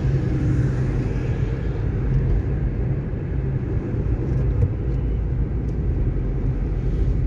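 Steady low rumble of a car driving on a highway, heard from inside the cabin: engine and tyre noise on the road surface.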